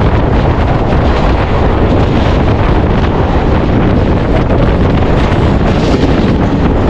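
Steady, loud wind noise buffeting the microphone, a dense rush with no breaks.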